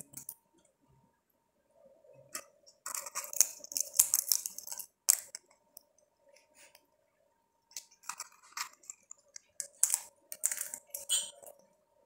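African grey parrot cracking and chewing sunflower seeds with its beak: two bursts of sharp, crunching clicks a few seconds apart, with quiet in between.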